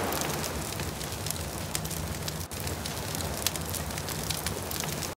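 Fire burning: a steady rush of flames with a low rumble and scattered sharp crackles and pops. It dips briefly about halfway through and cuts off suddenly at the end.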